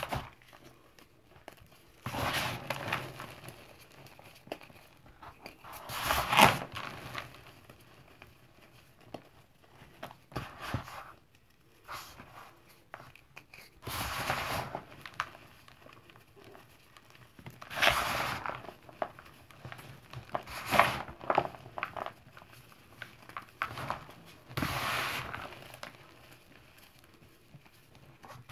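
Hands crushing and crumbling crispy chunks of gym chalk and cornstarch, in a series of dry crunching bursts about every three to four seconds with quiet stretches between.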